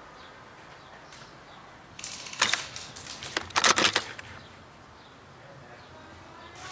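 A rapid flurry of clicks, clatter and rustling starting about two seconds in and lasting about two seconds: handling noise as the airsoft sniper rifle is lowered and moved.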